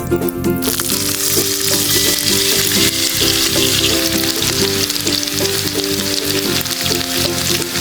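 Oil sizzling and crackling as food fries in a small pan, starting about a second in, over background music.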